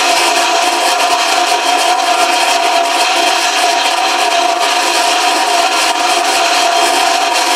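Flow bench motor running steadily and drawing air, a steady whine over the rush of air. Its speed control holds the test depression at about 28 inches of water while the flow climbs toward 300 cfm.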